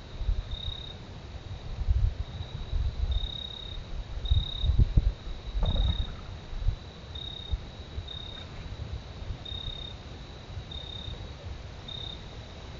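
A steady high insect trill with brighter chirps about once a second, over irregular low rumbling.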